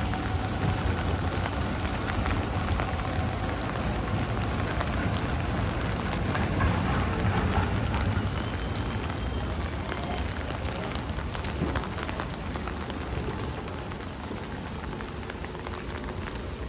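Heavy rain falling, a steady hiss full of sharp close drop ticks, over a low rumble that eases off in the last few seconds.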